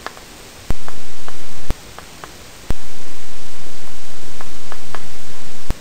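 Loud steady hiss, like recording static, that switches on and off abruptly with a click at each change: on about a second in, off briefly near two seconds, then back on for most of the rest. Under it, faint light ticks of chalk on a chalkboard as words are written.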